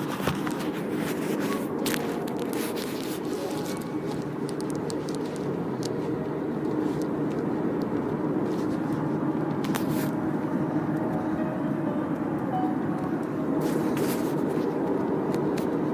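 Steady road and engine noise inside a moving car's cabin, with a few brief clicks and rattles.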